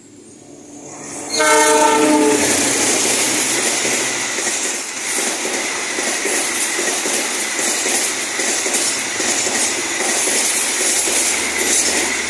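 A passenger train sounds its horn in one short blast about a second and a half in, then runs past close by, loud and steady, with the rush and rapid clatter of its wheels on the rails.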